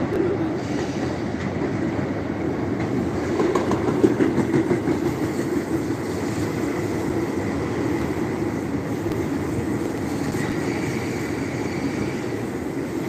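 Train running on the rails: a steady rumble.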